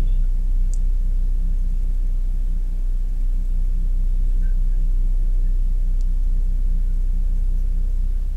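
Steady low electric hum with a faint higher whine above it, heard through a phone's speaker, with a couple of faint ticks.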